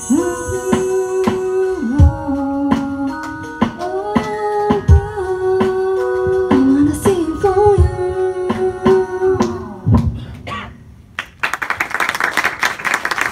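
Women's voices singing long held final notes over a backing track with a steady beat, the song ending about ten seconds in. An audience starts clapping near the end.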